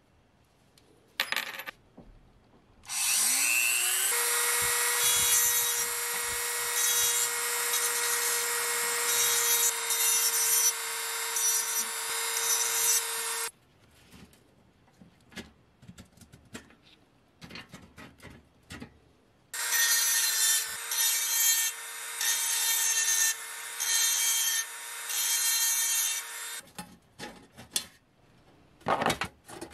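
A small high-speed rotary tool spins up with a rising whine and runs at a steady high pitch, with a grinding hiss over it, for about ten seconds. Light clicks and knocks of handled metal parts follow, then it runs again for about seven seconds.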